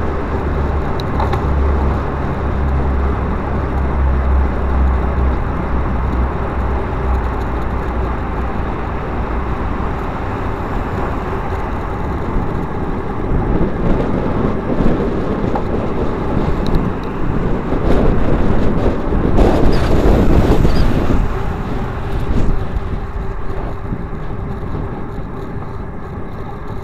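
Steady rushing noise of wind and tyres picked up by a handlebar-mounted action camera on a moving road bike, with motor traffic on the road. A low hum in the first several seconds fades, and the noise swells louder about two-thirds of the way through.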